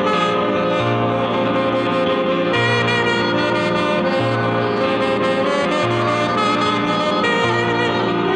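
Free-improvised jazz: a tenor saxophone playing sustained tones over a Nord Stage keyboard. A low note repeats about every second and a half.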